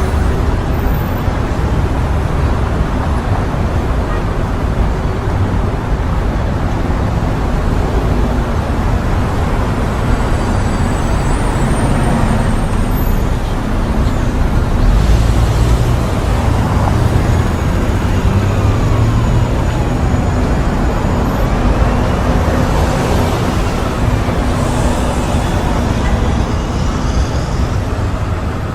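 Urban street traffic: a steady rumble of cars, buses and trucks passing, with engines rising and falling in pitch as vehicles pass, strongest in the second half.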